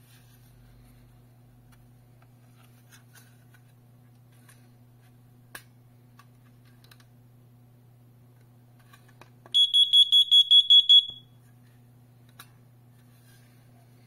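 Smoke alarm's sounder giving one short burst of about nine rapid, high-pitched beeps, lasting about a second and a half, a little past the middle.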